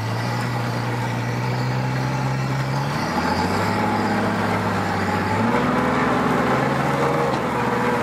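Yamaha outboard motor on a bass boat running under throttle, pushing the hull up onto its trailer. The engine note holds steady, then shifts in pitch about three seconds in and again past five seconds in as the throttle changes.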